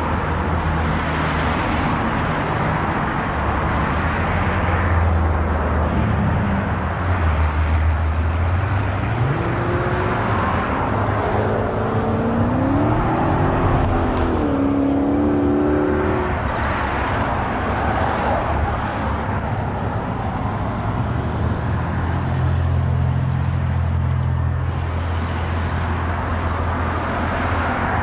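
Steady noise of motor-vehicle traffic with a low engine hum. About ten seconds in, a pitched engine sound rises and falls for several seconds.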